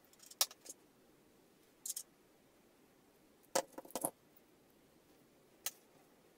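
Scattered light clicks and taps from handling a plastic-framed 18650 battery pack and its wires. A short rattly cluster of clicks comes about three and a half seconds in, and a last single click near the end.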